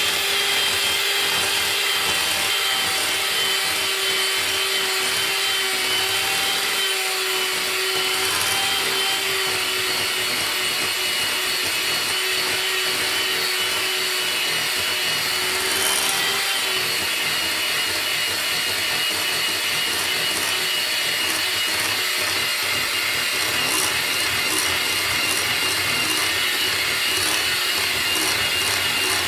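Electric hand mixer running steadily, its beaters churning through brownie batter, with a constant motor whine.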